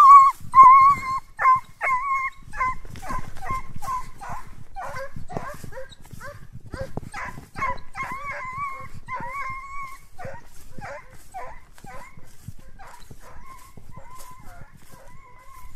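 Hunting dog giving voice on the trail of a hare: a fast run of high barks, some drawn out into longer yelping notes. They are loudest at the start and fade to fainter, sparser barks in the second half.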